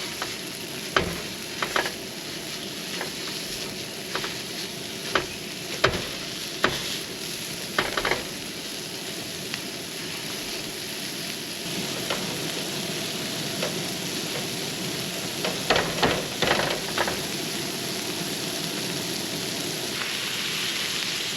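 Breakfast sausage sizzling steadily in a small frying pan on a grill, with a utensil knocking and scraping against the pan from time to time, several times in quick succession about two-thirds of the way in.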